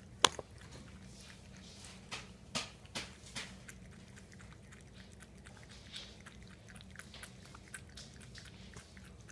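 A cat lapping water from a bowl: faint, irregular little wet ticks, with a sharp click about a quarter second in and a few louder ones around two to three seconds in.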